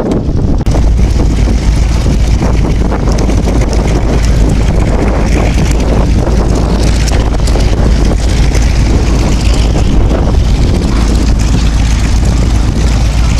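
The twin Pratt & Whitney Wasp Junior radial engines of a Lockheed 12A Electra Junior running as it banks and passes overhead in flight. Heavy wind buffeting on the microphone sets in about half a second in.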